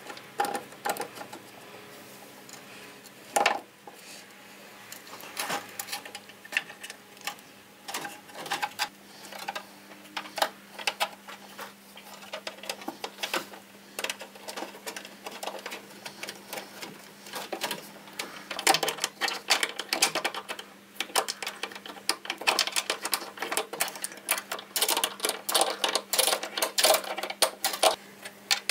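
Metal clicking and tapping from fitting new copper brake pipes into their clips under a Mercedes 180 Ponton and working a wrench on a brake-line union, with the clicks coming thick and fast in the last third. A steady low hum runs underneath.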